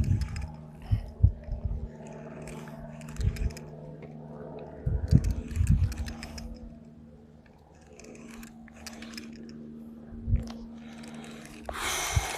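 Hand pipe cutter being worked around a well pipe: intermittent crunching and scraping with scattered knocks, over a steady low hum, and a short hiss near the end.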